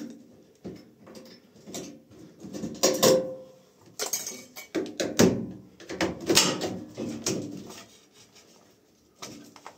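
Hard plastic clicking, knocking and scraping as the control panel and detergent-drawer housing of an LG front-loading washing machine are unclipped and pulled free, with a brief squeak about three seconds in. The loudest knocks come in a cluster from about five to six and a half seconds in.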